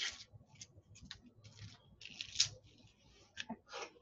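Papery outer skin of an onion crackling and rustling as it is peeled off by hand: a string of short, crisp crinkles.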